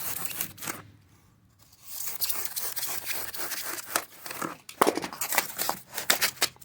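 Paper being cut out with a cutter and handled: scratchy tearing and crinkling strokes, pausing for about a second near the start.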